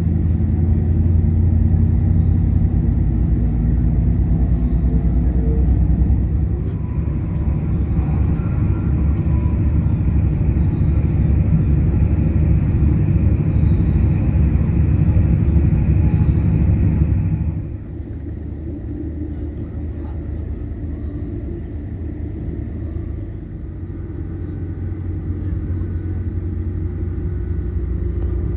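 Steady low rumble of a moving passenger vehicle heard from inside, loud for the first two-thirds and then dropping suddenly to a quieter, steady run.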